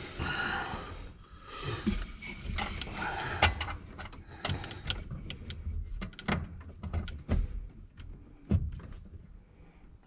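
Scattered metallic clicks and knocks with rustling as a bolt is worked by hand into a clutch pedal bracket up under a truck's dash. The top bolt is stubborn and fighting going in.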